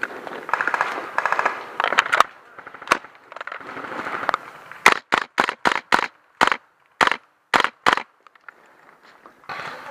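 Airsoft rifle firing a quick string of about ten single shots, sharp cracks a quarter to half a second apart, starting about halfway in. Before that, a spell of irregular rattling.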